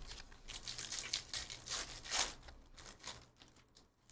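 Foil trading-card pack crinkling and tearing as it is ripped open, a run of irregular crackles with the loudest about two seconds in.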